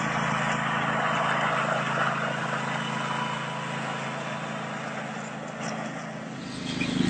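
Flatbed truck's engine running steadily, a low drone with a rushing hiss over it, swelling briefly near the end.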